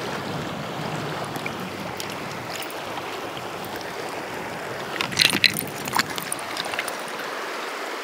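River water running steadily around the wading angler, with a brief clatter of sharp clicks and knocks about five to six seconds in as a trout is handled in a rubber-mesh landing net.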